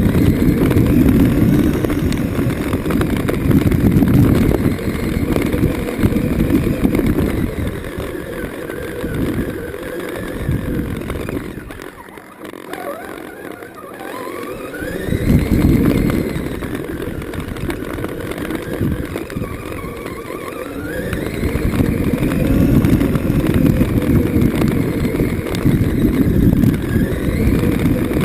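Electric Traxxas Summit RC truck driving, heard close up from a camera mounted on it: a heavy rumble of tyres and drivetrain over rough ground, with a motor whine that rises and falls with the throttle. It eases off about twelve seconds in and picks up again around fifteen seconds.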